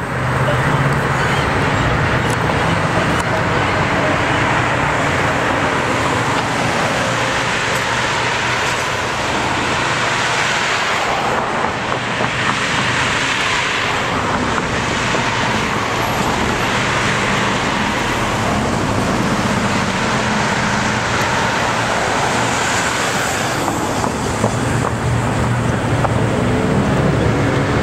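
Road traffic at a busy intersection: cars driving past with steady engine and tyre noise that swells and fades as several vehicles go by.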